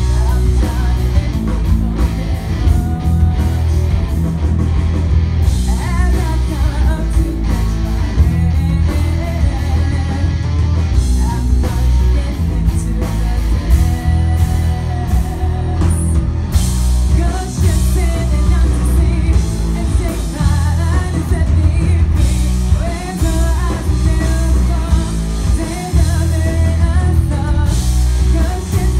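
Live rock band playing: a female lead vocalist singing over electric guitars, bass and a drum kit, loud and continuous.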